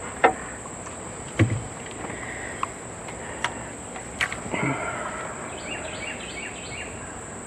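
Scattered sharp clicks and a knock from a hand blind-rivet gun being handled and worked, over a steady high drone of insects, with a few short bird chirps near the end.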